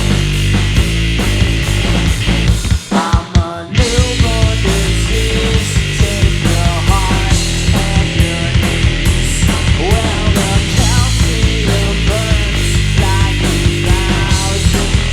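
Live three-piece rock band of electric guitar, bass and drums playing loud, distorted, punk-leaning rock with no vocals. The bass and drums drop out briefly about three seconds in, then the full band comes back in under many bending, sliding notes.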